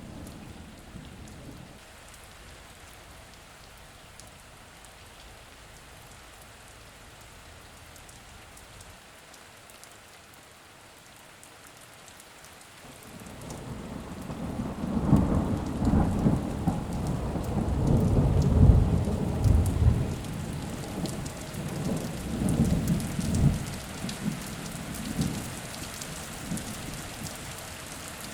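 Steady rain falling, with a long roll of thunder that builds about halfway through, rumbles loudest for several seconds and slowly fades away.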